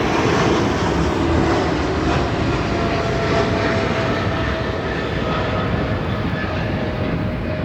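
Boeing 777 freighter's GE90 turbofan engines at takeoff power: a loud, steady jet roar with faint whining tones, easing off slightly toward the end.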